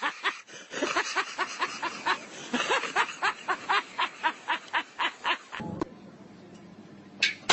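A person laughing hard in quick repeated bursts, about four to five a second, then a short sharp sound near the end.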